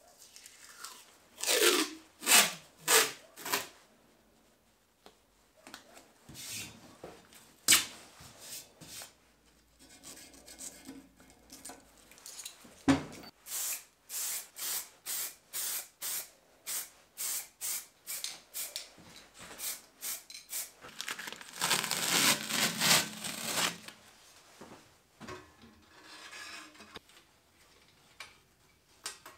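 Adhesive tape pulled off the roll in four loud rips, each falling in pitch. Later come scattered clicks and a knock, a run of evenly spaced clicks about two a second, and a few seconds of steady hiss.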